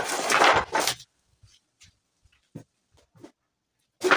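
Wooden pallet boards scraping and clattering as they are laid onto a pile of planks on a concrete floor: a loud rough scrape of wood on wood for about the first second, a few light knocks, then another short clatter near the end.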